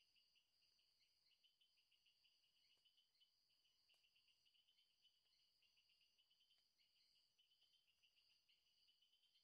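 Near silence, with a faint, steady, high-pitched chirping trill like crickets.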